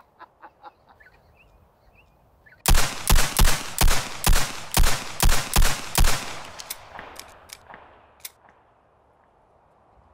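A Colt 1911 .45 semi-automatic pistol fired about ten times in quick succession over roughly three and a half seconds. A few faint clicks follow.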